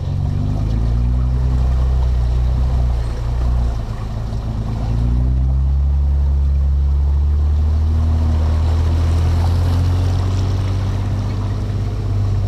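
2009 GMC Yukon XL's V8 engine running under load while wading through a deep, muddy water hole, with water sloshing and splashing around the truck. The engine note rises and falls a few times and eases off briefly about four seconds in.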